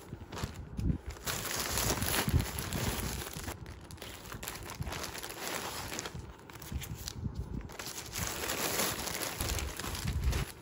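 Plastic mailer bags crinkling and rustling as clothes are pulled out of them and handled, louder and quieter by turns.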